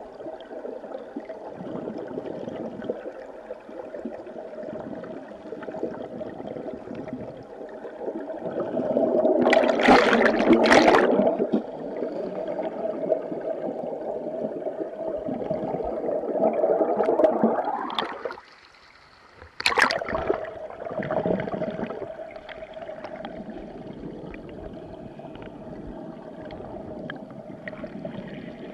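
River current heard underwater through the camera's waterproof housing: a muffled, steady rushing and gurgling with a constant hum. It swells louder for about two seconds a third of the way in, drops almost out for a second past the middle, and comes back with a sharp knock.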